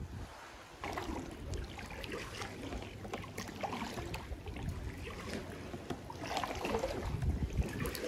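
Kayak being paddled: water splashing and sloshing, with brighter splashes from paddle strokes coming back every two to three seconds.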